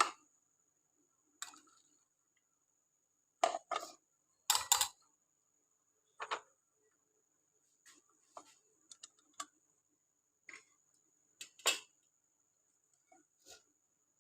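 Kitchenware being handled, a pot, a strainer and glasses clinking and knocking while boiled milk is readied for straining into the glasses. About a dozen separate knocks with quiet between, the louder ones about three and a half to five seconds in and near twelve seconds.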